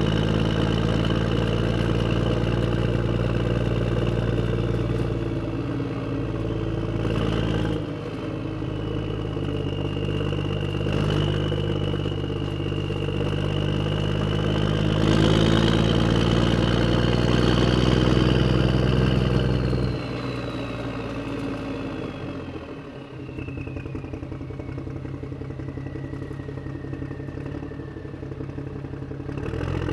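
A heavy vehicle engine running with a steady low drone that drops off about twenty seconds in. A high whine slides slowly downward in pitch over the second half.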